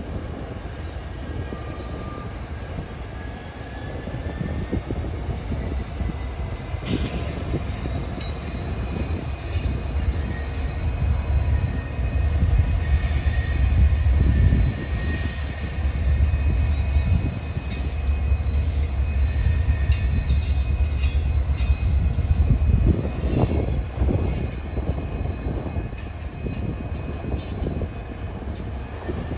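Diesel-electric locomotives, two EMD SD75s and a rebuilt GE C44ACM, pass with a low engine rumble that builds to its loudest about halfway through. Toward the end the rumble gives way to the knocking and rolling of loaded freight cars.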